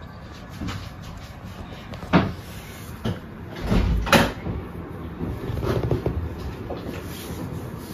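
Two sharp knocks, about two and four seconds in, with a fainter one between them and a low rumble just before the second.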